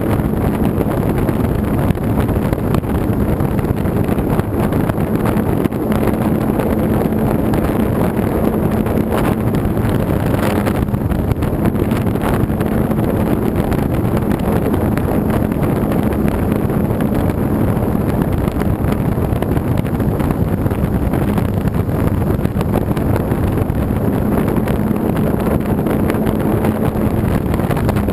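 RC model airplane's engine and propeller running steadily in flight, heard from a camera mounted just behind the propeller, with a steady hum under wind rushing over the microphone.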